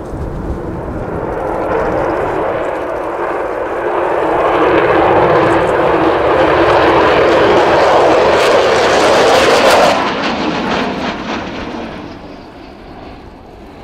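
An Avro Vulcan B2 bomber's four Rolls-Royce Olympus turbojets at high power on a fast pass. The jet noise builds to a loud, crackling peak, then falls away sharply about ten seconds in as the power comes off.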